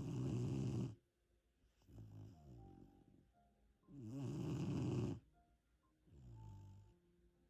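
Three-month-old puppy snoring in its sleep, in a steady breathing rhythm. Two loud snores about four seconds apart, each followed by a softer one.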